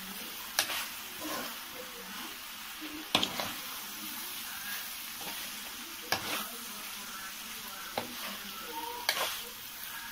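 Curry sizzling in a kadai as a metal ladle stirs it, with five sharp knocks of the ladle against the pan, a couple of seconds apart.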